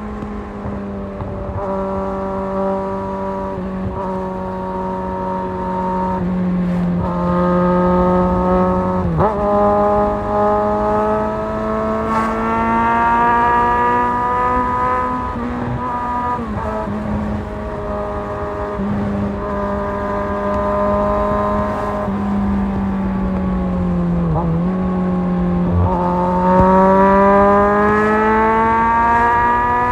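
Kawasaki Z1000 inline-four motorcycle engine running under way with wind rush. It holds fairly steady revs with several brief dips in pitch, then rises in pitch as it accelerates near the end.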